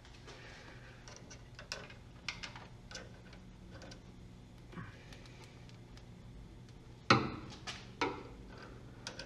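Scattered light clicks and taps of tools and small parts being handled during work on a steering rack, with a louder knock about seven seconds in and another a second later.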